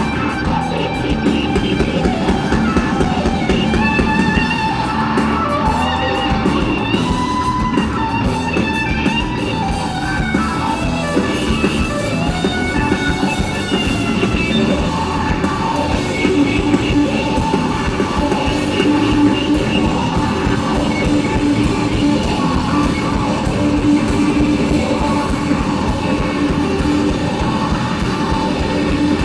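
Live rock band playing: electric guitar over a drum kit, sounding steady and loud throughout.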